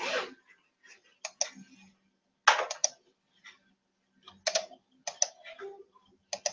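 Typing and clicking on a computer keyboard, in short irregular clusters of sharp keystrokes, over a faint steady hum.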